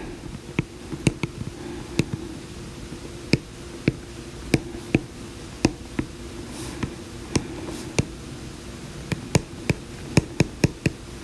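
Light, irregular taps of handwriting on an iPad's glass screen, roughly two a second and coming faster near the end, over a steady low hum.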